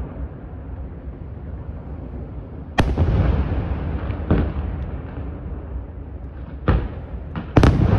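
Aerial firework shells bursting: single sharp bangs about three seconds in and again a second and a half later, then a cluster of three near the end, the last the loudest. Each bang trails off into a low rolling rumble that fills the gaps between them.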